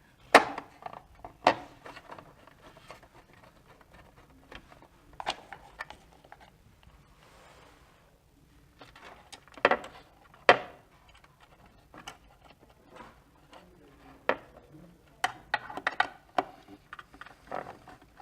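Irregular sharp clicks and taps of a small screwdriver and tiny screws being handled and driven in, fastening a USB port board inside a cutting plotter's housing.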